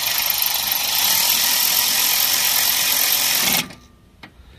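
Milwaukee cordless ratchet running a socket on an ignition-coil mounting bolt with a steady motor whirr. It stops suddenly a little before the end, and a couple of faint clicks follow.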